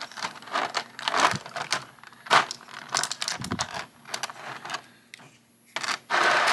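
Clear plastic blister packaging of an action-figure box being handled and pried open: a quick string of small clicks and crackles, then a louder crinkling rustle near the end.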